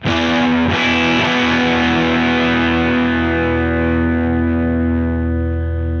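Distorted electric guitar chord struck once and left to ring, fading slowly, played through a TC Electronic Mimiq Mini Doubler with the doubling effect switched on, which thickens it into a multi-tracked sound.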